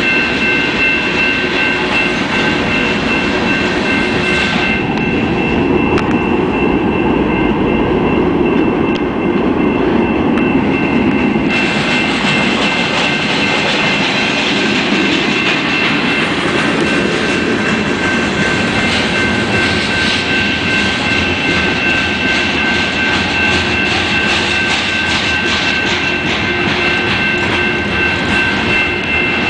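Freight train of hopper and tank cars rolling past at a grade crossing: a steady rumble of wheels on rail, with wheel clatter that grows denser in the second half. Steady high ringing tones sound above the train throughout.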